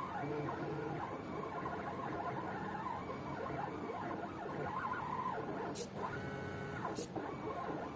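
Two NEMA 17 stepper motors of a 4xiDraw belt-driven pen plotter whining as they drive the pen carriage through a drawing, the pitch gliding up and down with each change of speed and direction. Two short sharp clicks about a second apart near the end.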